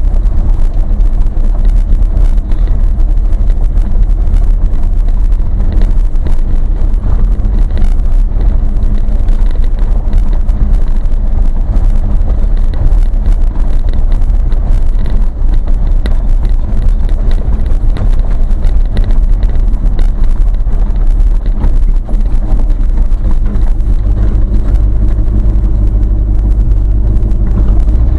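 Vehicle driving on a gravel road, heard from inside the cab: a loud, steady low rumble of engine and tyres with a constant crackle of gravel under the wheels.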